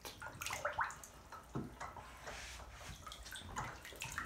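Bathwater lapping and dripping as a child shifts his body in a filled bathtub, with small scattered splashes.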